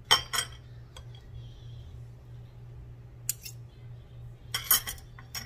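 Metal spoons clinking against each other and against a glass mixing bowl as pickle relish is scraped off them, in short scattered clinks with the loudest pair near the end, over a steady low hum.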